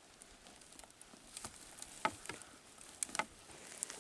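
Faint, scattered sharp snaps and crackles, about six over a couple of seconds, from movement in dry forest brush and twigs.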